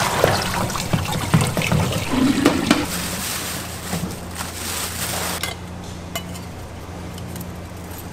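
Running water pouring and splashing into a pot, with dishes and utensils clinking. The water stops suddenly about five and a half seconds in, leaving a low steady hum and a few clinks.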